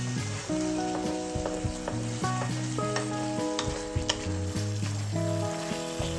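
Food sizzling in a frying pan and being stirred, with scattered clicks of the utensil against the pan. Background music with sustained notes plays over it.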